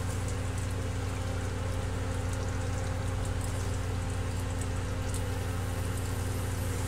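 Fish in coconut-milk sauce simmering in a wok, a soft even bubbling with faint scattered crackles, over a steady low electrical hum from the induction cooktop.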